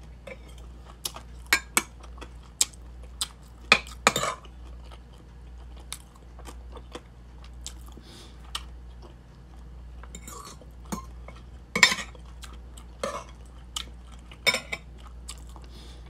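Metal spoon and fork clinking and scraping against a ceramic soup bowl and plate in scattered sharp strikes, with chewing between them and a steady low hum underneath.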